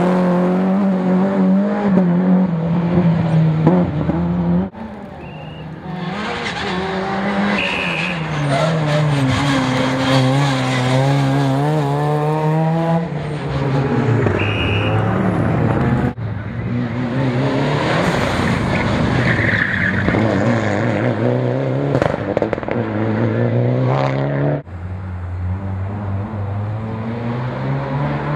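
A string of rally cars driving past hard one after another, the first a BMW 3 Series Compact. The engines rev up and drop back through gear changes, with brief tyre squeals. The sound cuts abruptly from one car to the next about three times.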